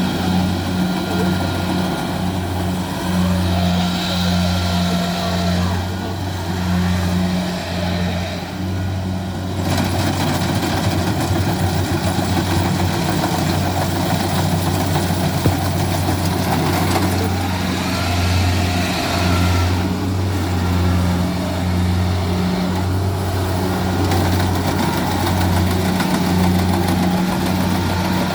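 Kubota combine harvester running steadily while cutting rice: a low engine drone that swells and dips every second or so, over the clatter of the machine's working parts.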